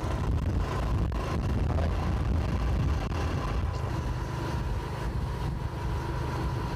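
Motorcycle under way on the road: steady engine and road rumble mixed with wind noise on the microphone.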